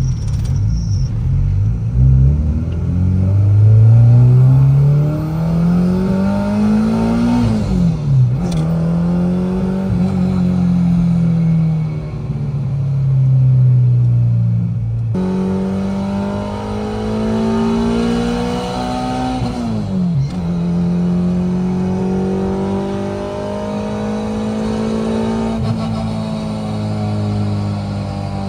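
Honda Integra DC2's four-cylinder engine heard from inside the cabin, pulling up through the revs, with a sharp drop in pitch at a gear change about eight seconds in and again near twenty seconds. It then settles into steady cruising.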